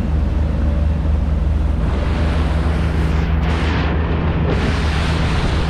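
Outboard motor on a rigid inflatable tender running steadily at speed: a constant low engine hum under loud rushing wind and water from the wake. The rush grows louder about two seconds in.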